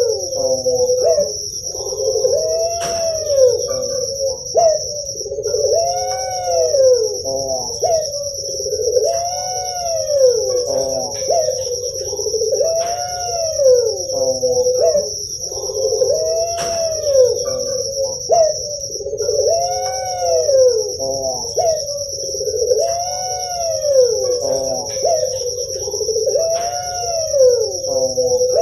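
Puter pelung (barbary dove, Streptopelia risoria) cooing over and over, one call about every three and a half seconds: a few short clipped notes, then a drawn-out coo that rises and falls. A steady high whine runs underneath.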